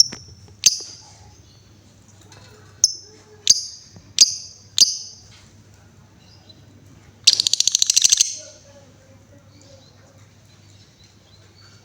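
Female lovebird calling: a series of sharp, high single chirps under a second apart, then about seven seconds in a fast rattling trill lasting about a second, the 'ngekek' trill that keepers prize.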